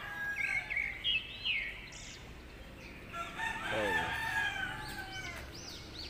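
A rooster crowing, one long crow from about three seconds in, with smaller birds chirping short rising-and-falling notes in the first two seconds.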